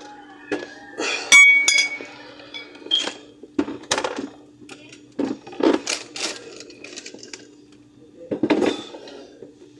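Drink cans and a glass bottle knocking and clinking as they are set into a fridge, a dozen or so irregular knocks, with one sharp clink about a second in that rings briefly.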